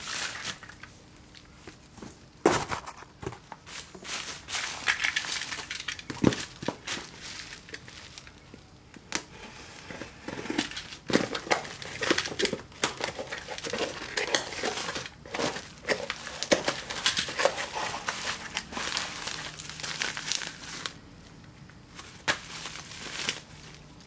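Plastic bubble wrap and packaging crinkling and rustling while a small cardboard box is handled and cut open with a utility knife: irregular crackles and clicks, with two sharp knocks among them.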